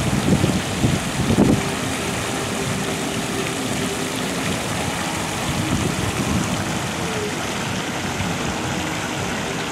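Water from a plaza fountain's jets splashing steadily down into its basin, an even rushing spatter. In the first second or so, low gusts of wind buffet the microphone over it.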